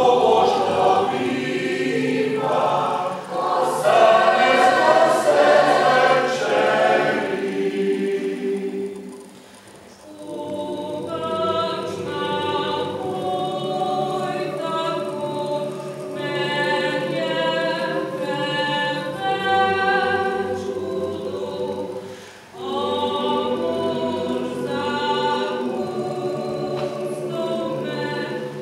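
Mixed choir of men's and women's voices singing a cappella. The full choir sings loudly for about the first eight seconds, fades away, then comes back in more softly; the singing breaks off briefly about twenty-two seconds in and resumes.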